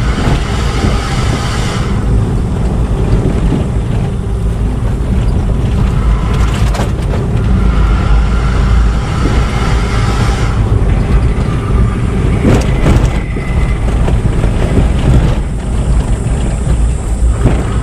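A vehicle on the move: steady engine, road and wind noise, with a few short knocks about seven and thirteen seconds in.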